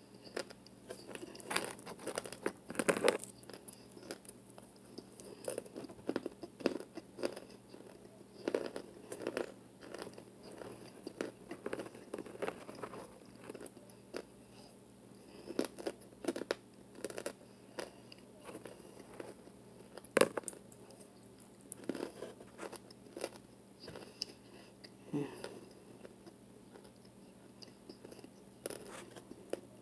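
Hard chunks of an arrowroot starch mix being bitten and chewed: irregular sharp crunches, the loudest about three seconds in and about twenty seconds in.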